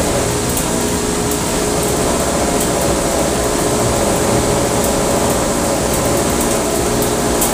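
Home-built cotton candy machine running, its electric motor spinning the head at speed with a steady mechanical hum and scattered light ticks.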